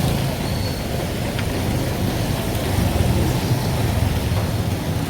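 Steady low rumble of street traffic, with vehicles running close by.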